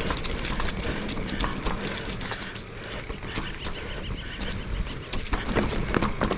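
Mountain bike rolling fast down a rocky dirt singletrack: tyres rumbling over dirt and stones with many sharp knocks and rattles from the bike, under a constant rushing noise.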